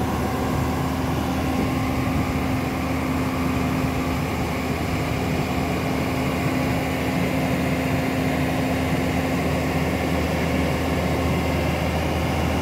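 JCB 205 tracked excavator's diesel engine running steadily, a constant droning hum with a steady low tone, as it works its boom and bucket.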